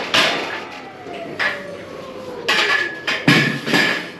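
Metal clanks and rattles from a load-securing bar being worked in the side rails of a curtainsider trailer. A thin squeak falls in pitch over the first couple of seconds, and there is a loud knock about three seconds in.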